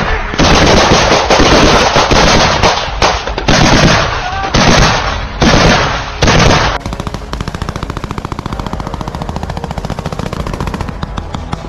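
Close, loud bursts of automatic gunfire, crack after crack, for about the first seven seconds. Then the sound cuts abruptly to a quieter, steady, rapid rattle.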